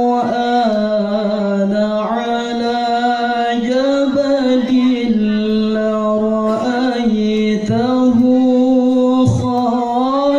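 A man reciting the Quran in the melodic tilawah style of a qari. He holds long, ornamented notes that slide up and down in pitch, with only brief pauses for breath.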